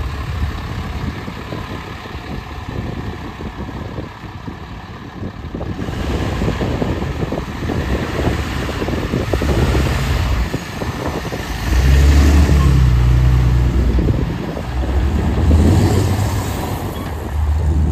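Dodge Ram 3500 HD wrecker truck's engine running at idle, with louder low rumbling swells about two thirds of the way through and again near the end.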